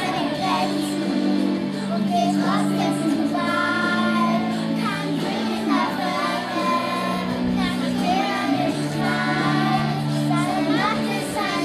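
A group of children singing a song together over steady held instrumental accompaniment.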